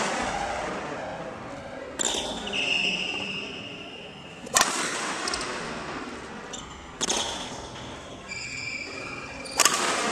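Badminton racket smashing shuttlecocks: four sharp hits, about every two and a half seconds, each ringing out in the echoing hall.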